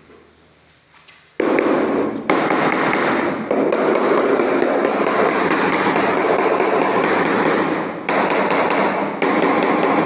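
Rubber mallet tapping rapidly on a large ceramic floor tile, bedding it down level with its neighbours. The taps start about a second and a half in and run in a fast, dense series with a few brief pauses.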